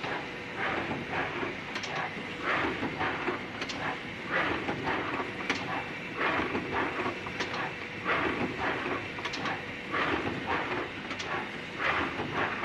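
Automatic CNC screen printing machine for glass perfume bottles running through its cycle: a steady run of short hissing bursts and clacks repeating several times a second.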